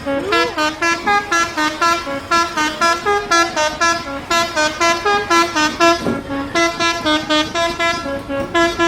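Bus 'telolet' musical horn playing a quick melody of short, separate tooted notes, about four a second, in several phrases with brief pauses between them.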